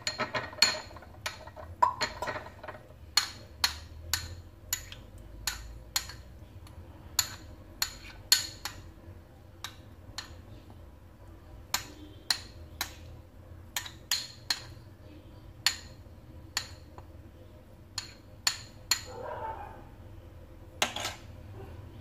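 A spoon clinking against a glass bowl as bird's eye chilli chutney is stirred with coconut oil: sharp, irregular clinks about one or two a second.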